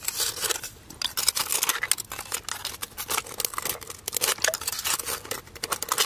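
Long metal crab tongs scraping and clicking against rock and grit inside a water-filled crevice as they probe for a mud crab, a rapid irregular run of small clicks and scrapes.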